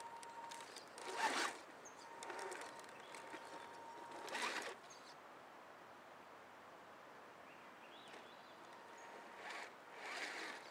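Scale RC crawler's electric motor and geared drivetrain whirring in short throttle bursts as it climbs a dirt trail: once a little over a second in, again about three seconds later, and more near the end.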